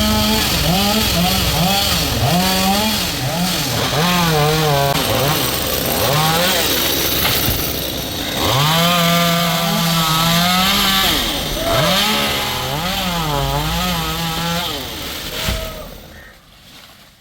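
Stihl two-stroke chainsaw revving up and down again and again as it cuts wood. It falls silent shortly before the end.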